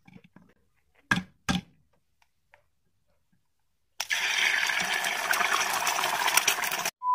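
An egg knocked twice against the rim of a steel pan to crack it. About four seconds in, the egg sizzles loudly as it fries in the hot pan, then the sizzle cuts off suddenly and a steady beep starts.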